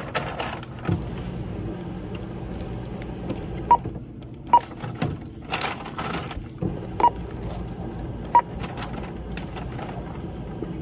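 Checkout register beeping four times: short, single-tone beeps at uneven intervals, the first nearly four seconds in. A paper shopping bag rustles as it is handled between the beeps.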